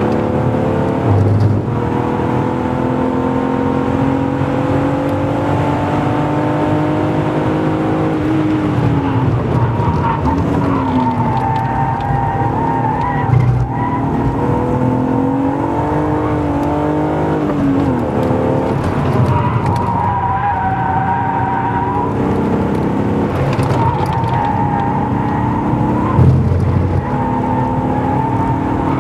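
BMW E36 328i's straight-six engine heard from inside the cabin at track pace, its revs climbing and falling with gear changes and braking. Tyres squeal with a wavering whine through the corners at several points.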